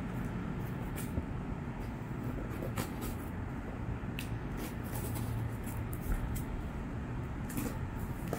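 Hands handling and prying at a smartphone's cardboard retail box whose lid is stuck tight: scattered short scrapes and clicks every second or so, over a steady low hum.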